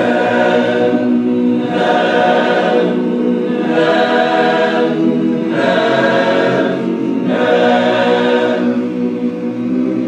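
Barbershop chorus singing a cappella on the syllable "nan", holding a steady pitch while the vowel opens and closes about five times.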